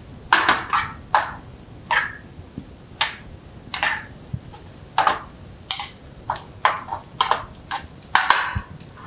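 Metal tongs clinking and scraping against a metal sauté pan while fettuccine is tossed in a cream sauce. An irregular series of short clinks, one or two a second, with a longer scrape near the end.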